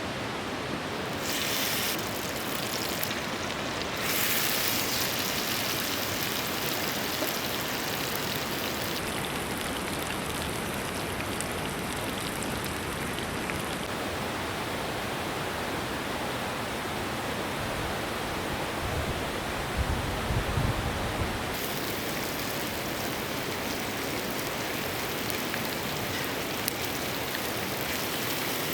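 Steady rushing of a flowing mountain river, its brightness changing abruptly several times. A brief low rumble comes about two-thirds of the way through.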